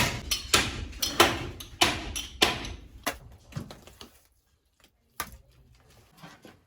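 A run of sharp knocks or blows, about two a second, that stops after about three and a half seconds; one more knock follows a little later.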